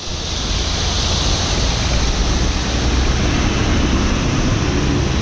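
Steady rush of floodwater as a car ploughs through it on a flooded road, pushing up a churning wake.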